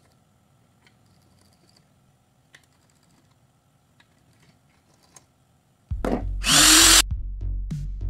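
Near silence with a few faint clicks and taps for about six seconds, then loud electronic background music cuts in abruptly: a heavy bass beat, a short whooshing sweep and evenly spaced percussion strikes.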